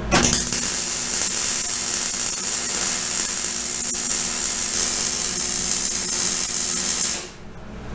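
MIG wire-feed welder arc crackling steadily while a short bead is laid on an axle truss. It strikes up at once and stops about seven seconds in.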